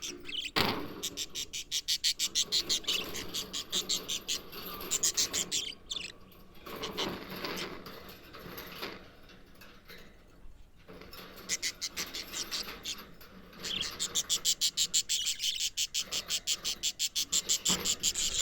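Budgerigars chirping and chattering in quick runs of high, clicky chirps, with a quieter lull partway through.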